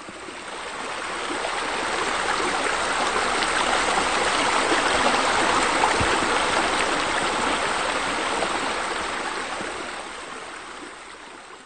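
Steady rush of running, splashing water, fading in over the first couple of seconds and fading out near the end.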